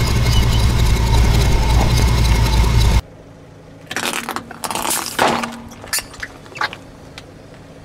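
A truck engine running loud and low for about three seconds, then an abrupt change to a car tyre rolling slowly over soft rubber puffer toys on asphalt, with a string of sharp crackles and pops about a second later.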